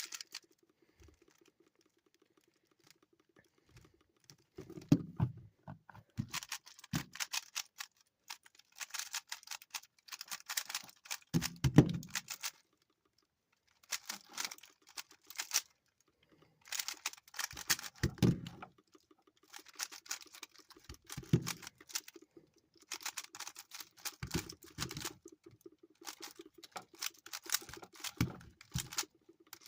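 Speed cube being turned one-handed during a solve: bursts of rapid plastic clacking from quick turns, each a second or two long, broken by short pauses, with a few heavier knocks.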